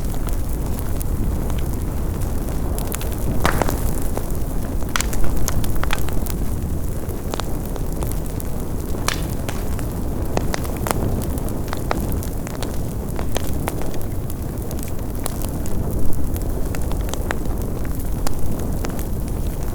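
Big bonfire burning: a steady low rumble of flames with irregular crackles and snaps of burning logs, a few sharper pops standing out.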